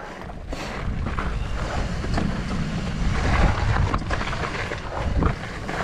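Wind buffeting the microphone in a heavy low rumble, with scattered clicks and crunches of mountain-bike tyres rolling over a rocky trail.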